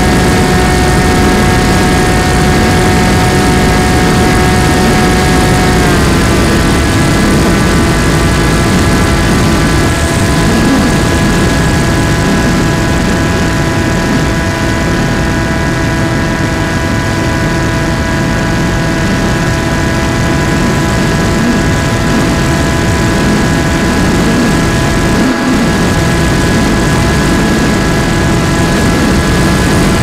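FPV plane's motor and propeller whining steadily in flight, heard from the onboard camera with wind rushing past. The whine drops slightly in pitch about six seconds in as the throttle eases, then holds.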